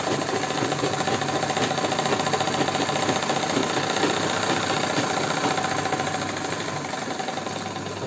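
Sewing machine running steadily, stitching a straight seam through a salwar cuff backed with canvas and foam; it slows and winds down near the end.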